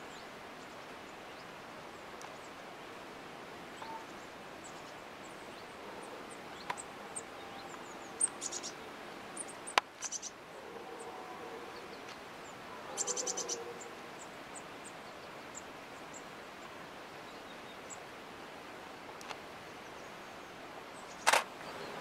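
Photo camera shutter firing over a steady outdoor hush: a quick burst of clicks about eight seconds in, a single sharp click near ten seconds, a rapid run of clicks around thirteen seconds, and one louder click near the end.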